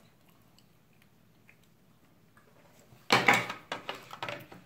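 Near-quiet, then about three seconds in a sudden loud burst of clattering, followed by several sharp clicks, from the fork and oyster shells being handled on the metal tray.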